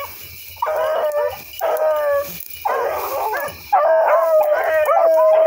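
Rabbit dogs baying on a rabbit's track: about five long bawls, one after another, with the calls running together near the end.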